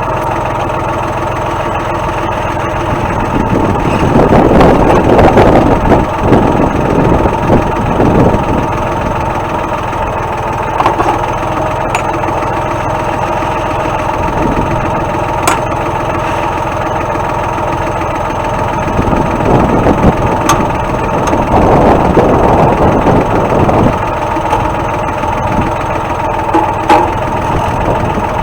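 Tractor engine running steadily at idle, growing louder for a few seconds twice: once a few seconds in and again past the middle.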